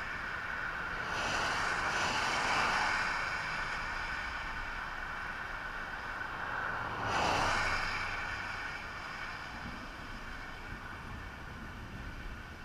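Highway traffic passing: tyre and engine noise swells and fades as a vehicle goes by about a second in, and again, more sharply, about seven seconds in, over a steady road hiss.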